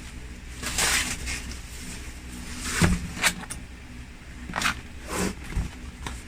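Unpacking sounds: irregular rustling of packaging and a few knocks and thumps as the boxed appliance is handled, over a steady low background hum.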